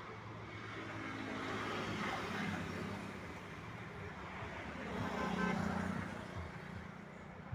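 Road traffic: a steady hum with vehicles passing, swelling twice, about two seconds in and again around five to six seconds in.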